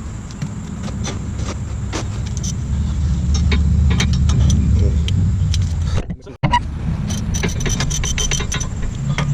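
Metal tools clinking and knocking against brake hardware, over a steady low hum that swells in the middle and breaks off briefly about two-thirds through.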